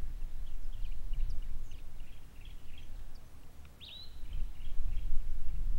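Low, gusty wind rumble on the microphone, with small birds chirping faintly and repeatedly in the background.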